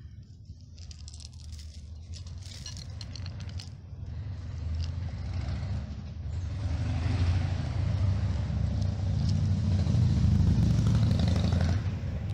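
A road vehicle passing close by: engine rumble and tyre hiss grow gradually louder over several seconds, then drop off near the end. Light rustling clicks come in the first few seconds.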